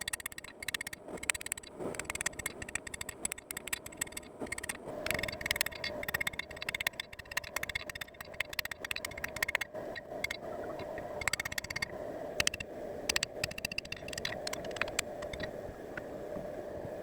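Steel being worked by hand: irregular scraping strokes with many light clicks, over a steady background hum.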